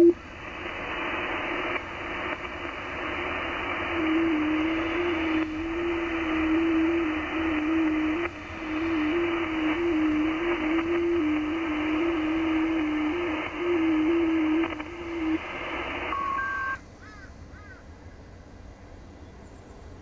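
Shortwave transceiver's receive audio on the 30 m band: a steady hiss of band noise carrying an FT8 digital-mode signal, a thin tone near 300 Hz that warbles up and down in small pitch steps from about four seconds in until about fifteen. This is the T30L Western Kiribati signal being decoded at 305 Hz. A click opens the hiss, and a little after sixteen seconds the hiss drops away to a quieter background.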